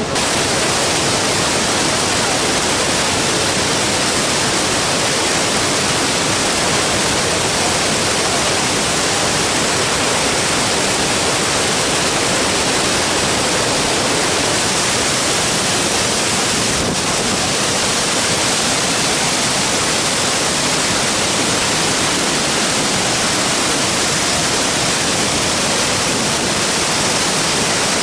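The Devil's Throat at Iguazu Falls: a huge volume of water plunging into the gorge, heard as a loud, steady, unbroken rush.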